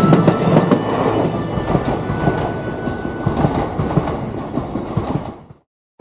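JR East E233-series electric train running past at close range, its wheels clicking over the rail joints in a steady rattle. The sound slowly dies away, then cuts off about five and a half seconds in.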